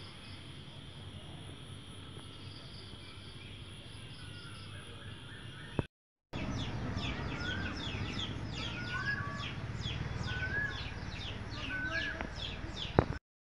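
Garden ambience at dusk: a steady, high insect trill for the first half. After a short dropout, birds call, with a short rising chirp repeated about once a second over quicker down-slurred twittering. Two sharp clicks mark the dropout and the end.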